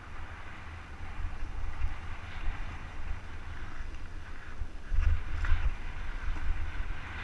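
Wind buffeting the action-camera microphone as it rides down a dirt trail, with the hiss and crunch of tyres rolling over dirt and rock. The rumble grows louder with a few knocks about five seconds in, as the ride goes over rougher ground.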